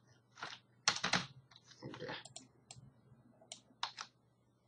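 Keystrokes on a computer keyboard: typing in short, irregular runs of separate clicks, stopping shortly before the end.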